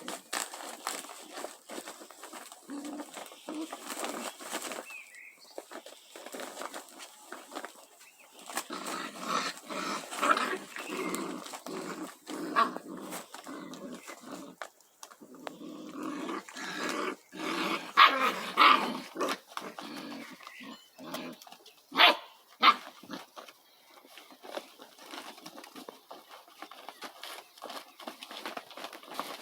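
A pet animal making irregular noises in uneven bouts, with two sharp clicks about two-thirds of the way through.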